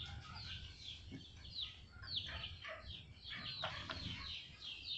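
Birds chirping: a rapid, continuous run of short, high calls, each sliding downward in pitch, several a second, fairly faint.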